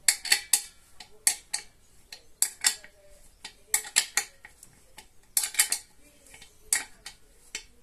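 Hard metal objects clinking and tapping, in quick clusters of two or three sharp clinks roughly every second.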